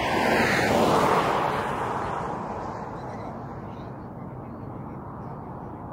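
Jet aircraft passing close by: broad engine noise that is loudest about a second in, then fades away.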